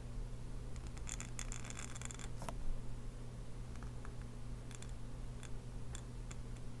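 Pointed steel nib in an oblique holder scratching across paper as it draws a long pen stroke, a dense rasping run from about one to two and a half seconds in, then a few faint ticks of the nib near the end, over a steady low hum.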